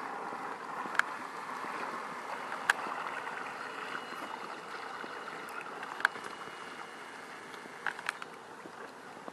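Radio-controlled model boat under way: a steady hiss of its motor and wash, with a faint high whine through the middle. Sharp clicks come about a second in, near three and six seconds, and twice close together near the end.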